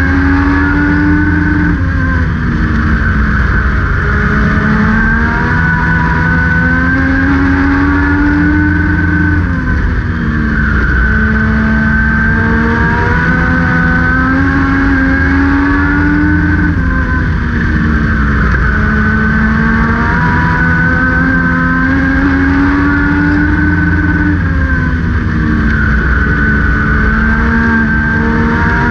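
Legend race car's engine at race pace, heard from on board. The revs climb along each straight and fall away into each turn, rising and dropping about every seven seconds, four times over.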